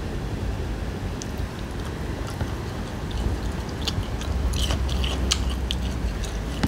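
Close-miked eating of crisp fried fish: chewing with small crunches and mouth clicks, thickest over the second half, over a steady low hum.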